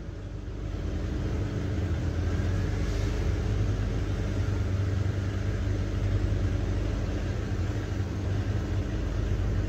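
A motor vehicle engine running steadily with a low rumble and hum, getting louder over the first second or two.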